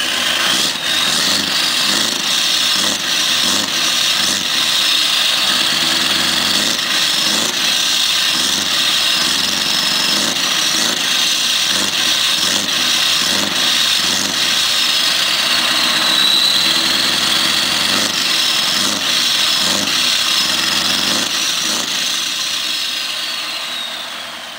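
Scania R580's 16-litre V8 diesel running steadily, heard close at its exhaust tailpipe, with a faint high whistle drifting up and down over it. The sound fades out near the end.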